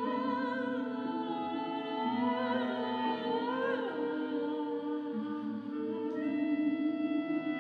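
Music: a high voice singing a wordless, wavering melody with vibrato in an operatic style over sustained held chords.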